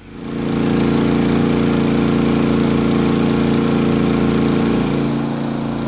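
Champion 3100-watt inverter generator running steadily under a 1500-watt hairdryer load, a loud even drone whose pitch shifts slightly about five seconds in.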